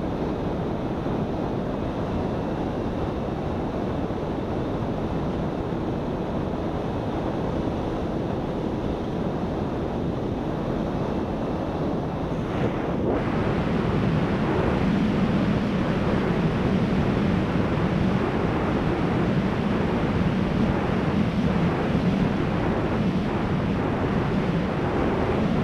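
Wind rushing over the onboard camera of a flying battery-powered RC plane, with the steady drone of its electric motor and propeller underneath. It gets louder and hissier about halfway through.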